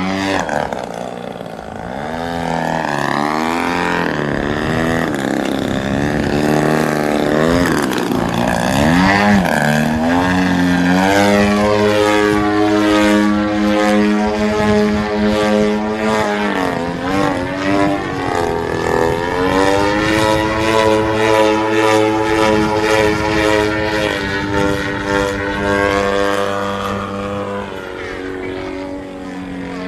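Engine and propeller of a 103-inch Pilot-RC Laser aerobatic model plane, powered by a GP-123 engine, in flight. Its pitch rises and falls repeatedly in the first few seconds of manoeuvres, then holds high and fairly steady with one brief dip in the middle, and drops near the end.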